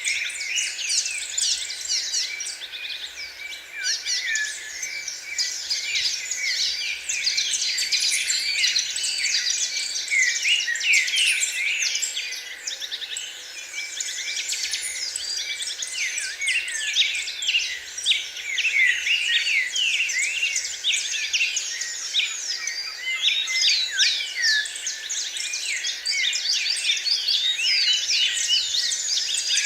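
A chorus of many small birds singing and chirping at once, a dense run of quick, high, overlapping chirps and trills without pause.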